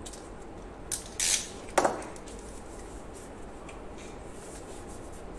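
A utility knife slitting open a sealed plastic antenna bag: a short hissing rustle of plastic about a second in, with two sharp clicks, the second ringing briefly.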